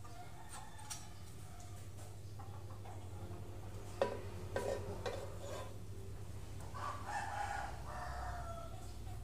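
A rooster crowing, one long call about seven seconds in, with fainter calls earlier. About four seconds in, a metal spoon knocks sharply against a stone mortar of ground chilli paste, followed by a few lighter clinks.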